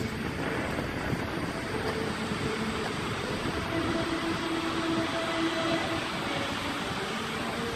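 Steady rushing noise of wind buffeting the microphone together with the fountain's water jets spraying. It swells a little in the middle as a row of jets shoots up.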